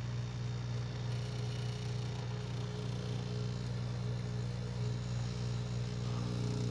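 Homemade froth flotation cell running: its stirrer motor and air pump give a steady low hum over a faint even hiss, while air is fed into the spinning ore slurry to raise a froth.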